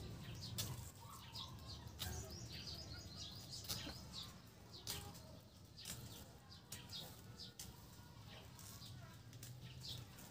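Faint, scattered chirps from small birds, with a few sharp clicks spread through.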